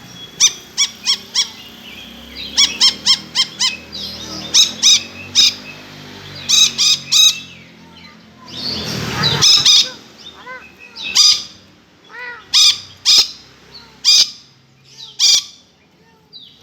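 Lory (nuri parrot) calling in quick runs of short, high-pitched notes, like a cackling ghostly laugh. It gives a harsher drawn-out screech about nine seconds in, then spaced single calls.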